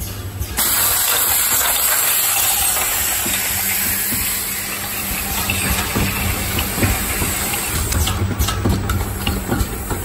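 Rotary bottle filling and plugging machine running: a loud, steady hiss of air starts about half a second in, over a low motor hum, with light mechanical clicks in the second half.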